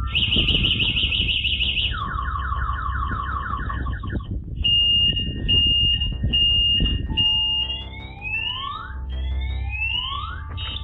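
Electronic anti-theft alarm set off by a bike being touched, cycling through its siren tones: a fast high warble, then a lower warble, then four steady beeps, then rising whoops.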